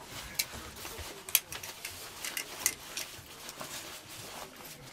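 Irregular sharp clicks and taps, the loudest about a second and a half in.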